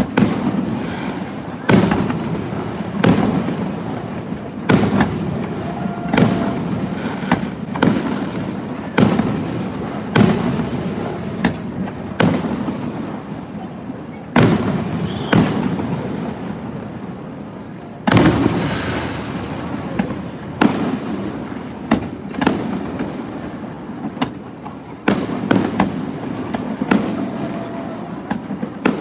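Aerial fireworks shells bursting one after another, a sharp bang about every one to two seconds, each trailing off in a rumbling echo.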